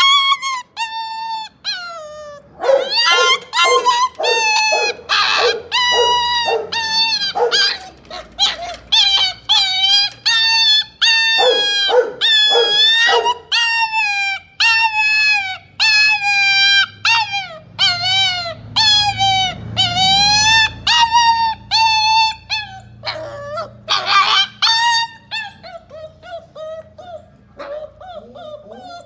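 Pit bull puppy whining and crying over and over in high-pitched, wavering calls, with runs of short yelps between them, as it begs to have the gate opened.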